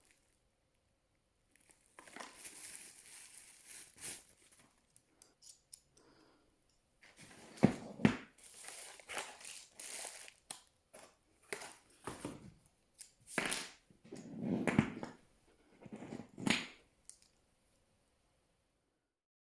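Packaging crinkling and rustling, with scattered sharp clicks and knocks, as a phone mount and ballhead clamp are unboxed and handled; it stops abruptly near the end.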